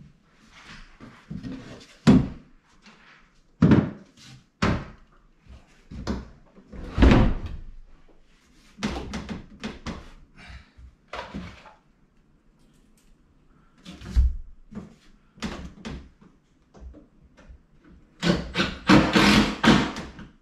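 Wooden bed parts being moved and set in place: irregular knocks and thuds of wood against wood and floor, with scraping and shuffling between them and a busier run of knocks near the end.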